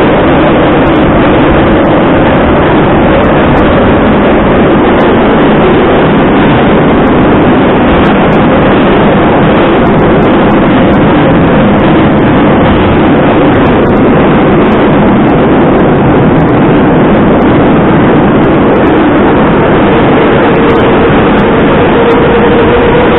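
Moscow Metro train running at speed through a tunnel, heard loud from inside the car: a steady roar of wheels on rail and running gear, with a hum that rises slightly near the end.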